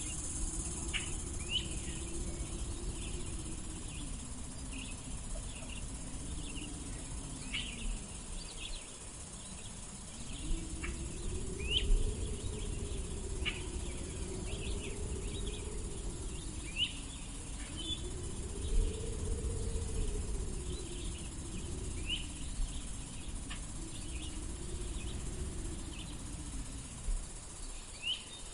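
Gentle wind blowing in slow gusts, rising and falling every few seconds, under a steady high hiss. Short bird chirps come scattered throughout.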